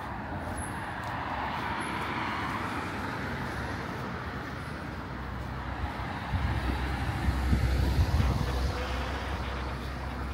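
Road traffic noise on a city street. It swells as a vehicle passes close, loudest about eight seconds in, then eases.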